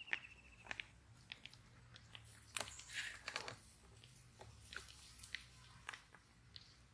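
Faint, scattered crunching clicks of footsteps through dry grass.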